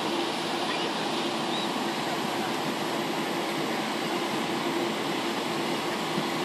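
Airliner cabin noise on the landing approach: the steady roar of jet engines and rushing airflow heard inside the cabin, with a steady hum running through it.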